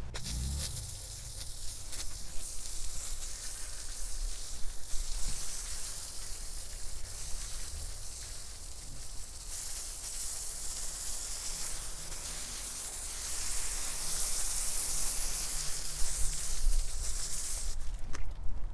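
Water spraying with a steady hiss onto the freshly sawn face of a granite slab, louder from about halfway through and stopping shortly before the end.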